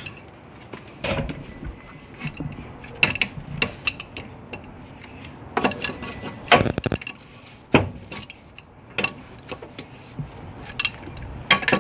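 Hand tools clinking and knocking against metal fittings while radiator hoses are tightened in an engine bay: scattered sharp metallic clicks, with a denser cluster a little past the middle.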